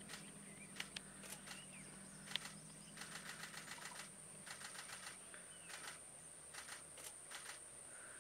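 Quiet bush ambience: a steady high-pitched insect drone with a few faint bird chirps, broken by several quick runs of sharp clicks. A low vehicle engine hum idles underneath and fades out about halfway.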